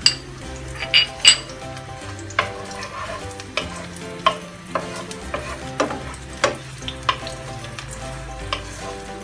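Chopped onion and garlic sizzling in oil in a nonstick frying pan while a wooden spatula stirs them, knocking and scraping against the pan about a dozen times at irregular intervals.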